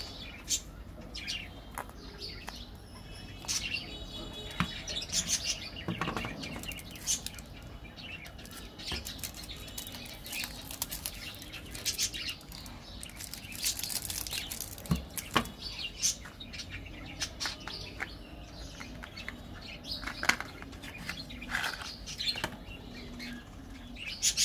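Foil candy wrappers crinkling and rustling in the hands as small foil-wrapped chocolates are handled and unwrapped, in irregular crackly bursts.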